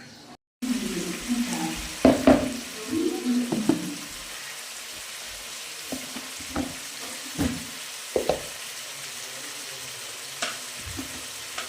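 Chicken frying in hot oil, sizzling steadily, while a utensil stirs and scrapes in the pan. The clatter is busy for the first few seconds, then becomes occasional single knocks.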